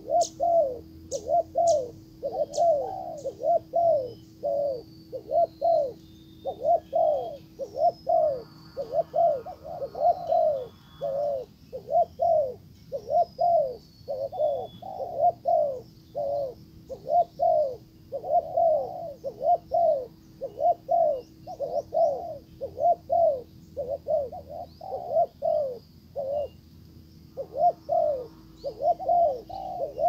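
Spotted dove cooing over and over, about two short coos a second in long runs with brief pauses. Faint chirps of small birds and a steady low hum lie behind it.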